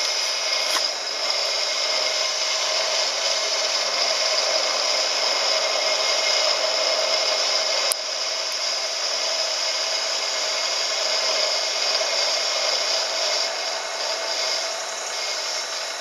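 Milling machine spindle running steadily at speed, spinning metal rod stock in a collet against a lathe bit clamped in the vise: the mill is being used as a makeshift lathe to turn down a drawbar. It makes a steady whir with a higher whine, with a single click about halfway through, after which it runs a little quieter.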